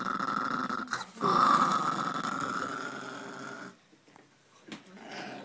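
Chihuahua growling in a long, steady rumble that breaks off briefly about a second in, comes back louder, then fades and stops.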